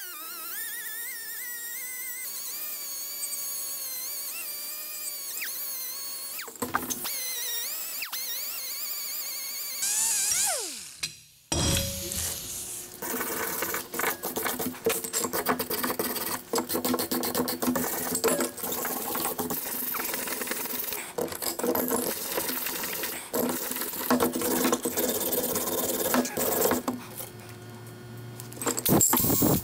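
Air-powered die grinder with a wire cup brush whining against the rusty steel of an antique screw jack, its pitch wavering as the load changes, then winding down about ten seconds in. After that comes a fast, scratchy scrubbing of wire bristles on rusty metal.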